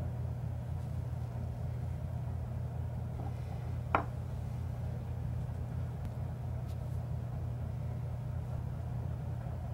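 Steady low mechanical hum, with a single sharp metallic click about four seconds in as a small steel bike-cog part is set down on the wooden workbench.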